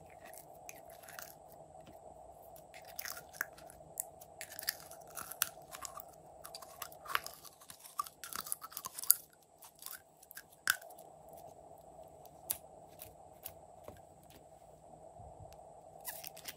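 Glossy slime being squeezed out of a plastic bear-shaped bottle and handled, giving sticky crackling and popping: irregular small clicks and pops that come thickest in the middle and thin out again near the end.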